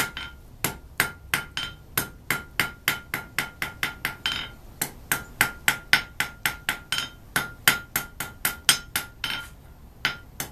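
A blacksmith's hand hammer forges a point on the end of a red-hot stainless steel bar on an anvil. The blows come in a steady run of about three to four a second, and each strike carries a ringing tone from the anvil. The hammering breaks off briefly about four seconds in and again near the end.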